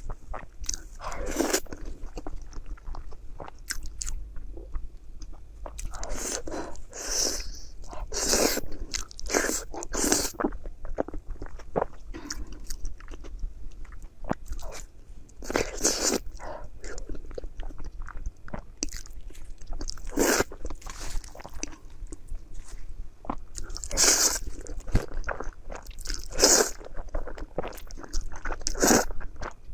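A person eating close to the microphone: chewing and biting food, with irregular sharp clicks and mouth smacks coming in clusters.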